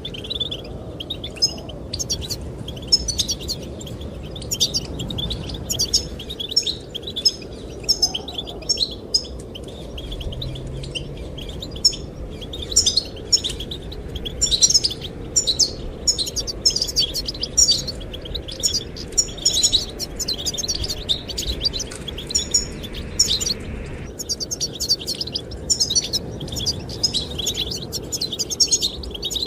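Goldfinch singing without a break, a fast run of twittering chirps and trills, over a steady low rush of wind.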